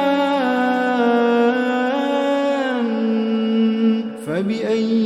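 Melodic Quran recitation: a single voice holds the final word 'jaan' of a verse in a long chanted note that steps down in pitch. It breaks off briefly for a breath about four seconds in, then begins the next phrase.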